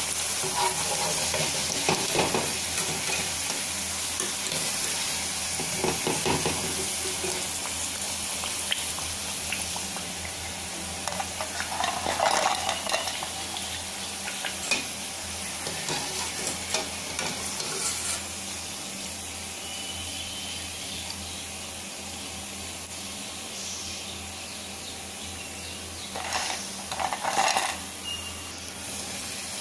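Pakoda deep-frying in hot oil in an aluminium kadai, a steady sizzle, with a metal strainer ladle clinking and scraping against the pan and plate now and then as the crisp pieces are lifted out, loudest near the end.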